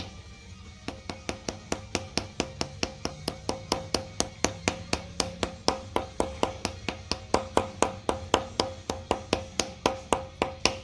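Soft-face hammer tapping a round cam-end plug into a Hyundai 2.7L V6 cylinder head to seat it flush: a quick run of light, even taps, about four to five a second, starting about a second in.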